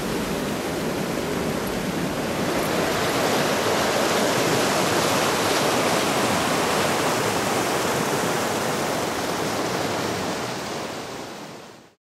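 A small river waterfall and rapids: whitewater pouring over rock ledges in a steady rush, which fades out near the end.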